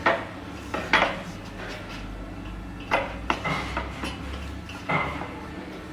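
Irregular sharp knocks and clatter with a short metallic ring, about six of them at uneven intervals, over a low steady machine hum.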